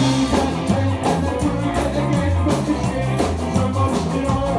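Live band playing rock music, with guitar and a bass line that steps from note to note.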